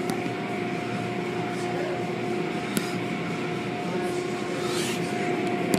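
Automatic car wash machinery running: a steady mechanical hum with a constant whine over a hiss, and a small click about three seconds in.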